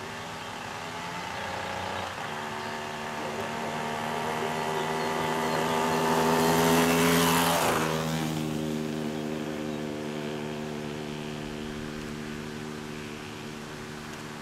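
A motor vehicle driving past: its engine note and road noise grow louder to a peak about seven seconds in, then the engine note drops in pitch as it passes and slowly fades away.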